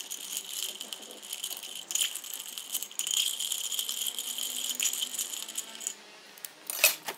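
Ice cubes clinking and sliding as a bar spoon stirs a drink in a glass mixing glass, a steady rattle that stops about six seconds in. A few sharp clicks follow near the end.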